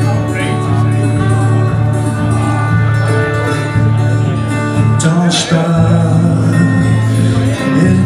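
Live band playing an instrumental passage: strummed acoustic guitar under a trumpet playing long held notes.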